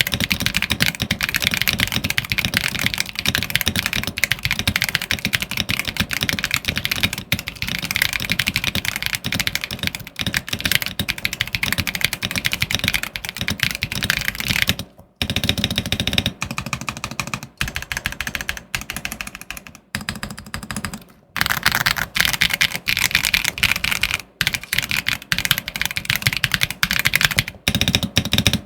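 Fast, continuous typing on a GMK67 gasket-mount mechanical keyboard with Holy Panda tactile switches and PBT keycaps, a dense run of keystroke clacks. The typing breaks off briefly about halfway through, and again a few seconds later.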